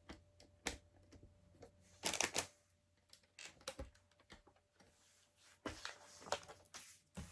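Plastic LEGO pieces clicking and rattling as they are handled and fitted together: faint, irregular light clicks, with a brief louder clatter about two seconds in.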